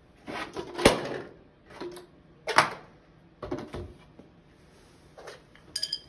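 A weight drops down a perforated plastic sewer pipe and crushes an aluminium soda can with a sharp bang about a second in. Several more knocks and clatters follow as the pipe and weight are handled, and a brief metallic ring comes near the end.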